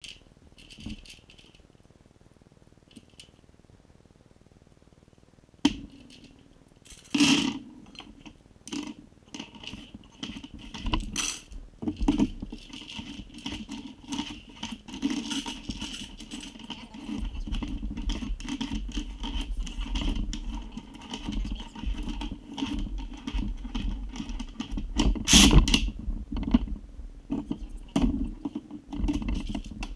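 Loose rifle cartridges clinking and rattling on a plywood magazine speed loader as gloved hands spread them and work them into an AK magazine, with scraping and sharp knocks. The sounds start about six seconds in, after a quiet opening, and the loudest clatter comes about 25 seconds in.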